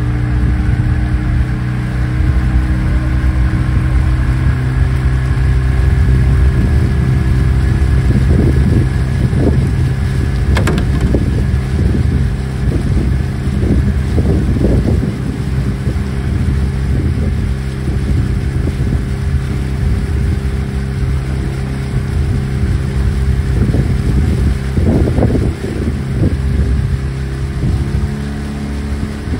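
Motorboat engine running steadily at a constant pace, a continuous low drone with occasional short bursts of rushing noise over it.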